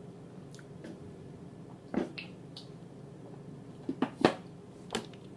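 Close-miked eating sounds: scattered sharp, wet mouth clicks and smacks from chewing, the loudest about two seconds in and just after four seconds.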